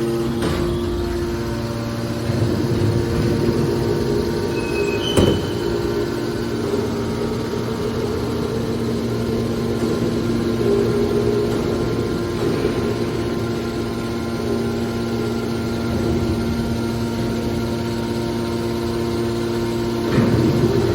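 Aluminum can baler running: a steady machine hum with a low rumble. There is one sharp knock about five seconds in, and the machine gets louder near the end.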